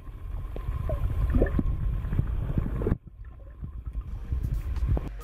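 Muffled underwater water movement, sloshing and gurgling against a submerged camera housing as a pike is held in the water by hand. It breaks off abruptly about three seconds in, then resumes.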